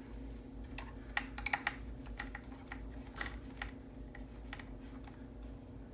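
Light, irregular clicks and ticks of a hand screwdriver turning a screw into the chassis brace on an RC truck, by hand rather than with the drill. A faint steady hum runs underneath.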